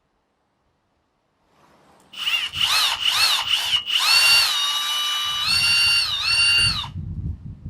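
Power drill pre-drilling screw holes. After about a second and a half of silence, the motor whine rises and falls in pitch several times as the trigger is eased on and off. It then runs at a steady higher pitch and stops about a second before the end, with low rumbling underneath in its second half.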